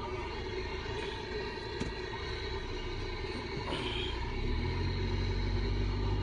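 Car engine running with a low rumble, heard from inside the vehicle in traffic. The low hum weakens early and comes back stronger about four and a half seconds in.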